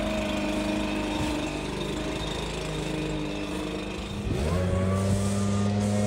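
Gas-engine backpack leaf blower running steadily, then throttled up about four seconds in: the engine note rises quickly and gets louder, then holds at high speed.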